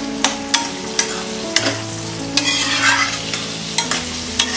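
Spatula stirring diced potatoes in a kadhai of hot oil, with a steady sizzle of frying and several sharp knocks and scrapes of the spatula against the pan.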